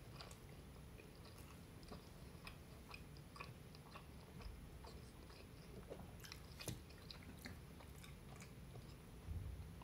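Faint chewing of a mouthful of homemade turkey lasagna, with small wet mouth clicks scattered at irregular intervals.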